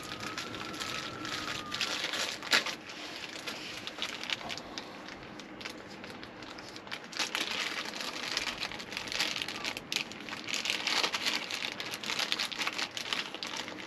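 Clear plastic bag crinkling and rustling as hands handle it and work an adapter cable out of it, in irregular crackly bursts that get busier past the middle.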